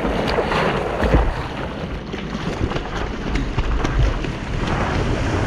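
Water splashing and rushing as a surfer paddles a longboard through whitewater, heard from a camera mounted on the board, with wind buffeting the microphone as a low rumble. Irregular short splashes from the arm strokes sound through the wash.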